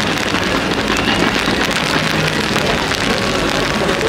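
Fireworks crackling and popping continuously, a dense rain-like crackle with no single bang standing out.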